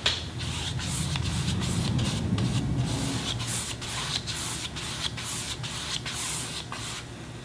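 Paintbrush stroking back and forth across a canvas with acrylic paint: quick scratchy brush strokes, about three a second, stopping shortly before the end.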